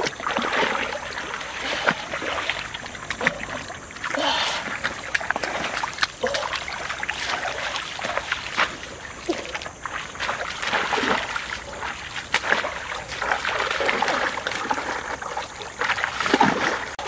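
Shallow stream water splashing and sloshing irregularly as a person wades and grabs at fish by hand.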